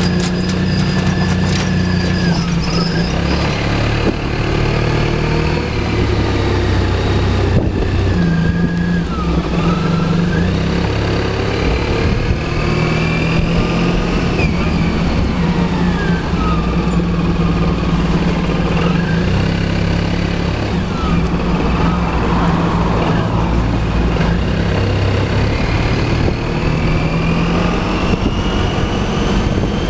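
Suzuki Burgman 650 maxi-scooter's parallel-twin engine running as the scooter pulls away from a standstill and rides at low speed. It is a steady low drone, with a higher note that rises and falls as the throttle opens and closes.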